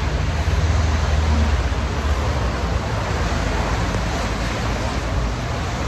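Steady street traffic noise with a heavy low rumble, strongest in the first couple of seconds.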